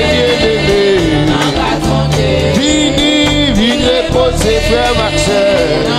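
Haitian gospel praise song: a voice singing long, bending phrases over band accompaniment with a steady beat.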